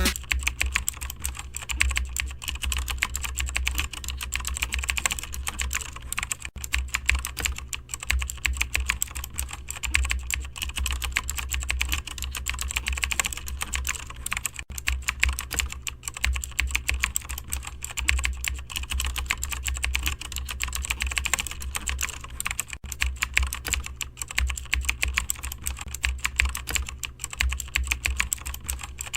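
Continuous typing on a computer keyboard, a dense, uneven patter of key clicks over a steady low hum.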